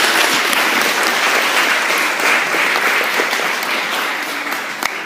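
Audience applauding: dense clapping that slowly thins out into scattered claps near the end.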